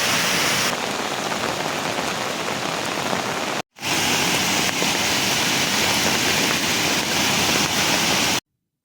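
Heavy monsoon rain falling steadily, a dense even hiss. It cuts out briefly a little before halfway and again just before the end.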